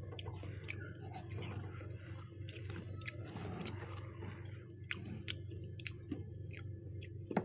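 Powdery freezer frost crunching as a hand digs into it and squeezes it, a dense crackle that turns into scattered crisp snaps in the second half, with one louder snap near the end.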